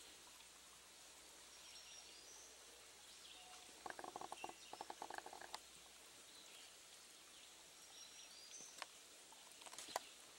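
Quiet woodland ambience: the faint steady hiss of a small stream, with a few short high bird chirps. About four seconds in a brief, rapid rattling series of pulses is the loudest sound, and a couple of sharp clicks come near the end.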